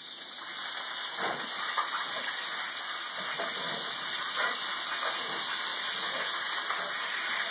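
Beef searing in a hot cast iron skillet, sizzling steadily. The sizzle gets louder about half a second in as the meat is turned onto its other side.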